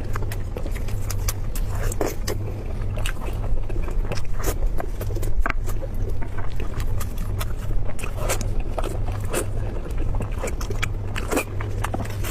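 Close-miked eating sounds: irregular wet chewing clicks and smacks, many per second, over a steady low hum.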